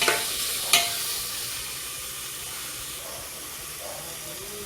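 Shredded chicken filling sizzling in a frying pan as it is stirred, a steady frying hiss with two sharp knocks in the first second.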